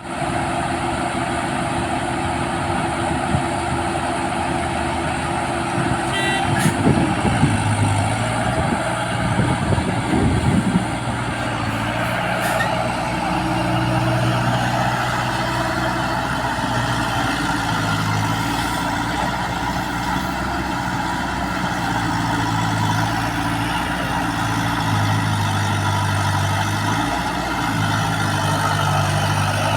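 Backhoe loader's diesel engine running under work, its speed rising and falling in steps as the hydraulics are worked. It is rougher and louder between about 7 and 11 seconds in.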